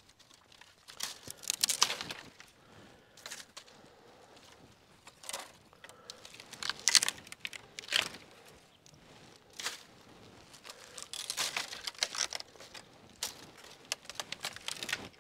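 Dry, splintered wood being pulled and broken off by hand, giving irregular bursts of cracking and tearing. The loudest clusters come about 2 seconds in, around 7 to 8 seconds, and around 11 to 12 seconds.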